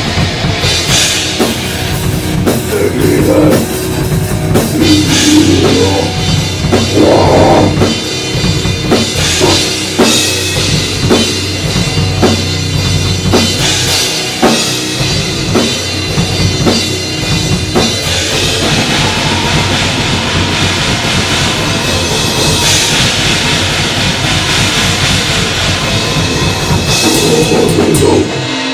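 Goregrind band playing loud and fast: rapid drumming with blast beats under heavily distorted guitar and bass.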